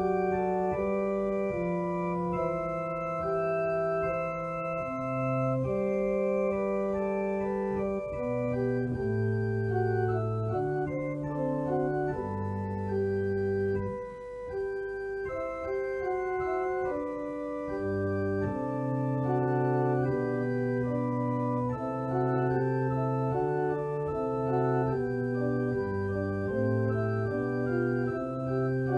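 Organ music: a slow piece in sustained chords over a stepping bass line, the notes changing every second or so, with a short lull about halfway through.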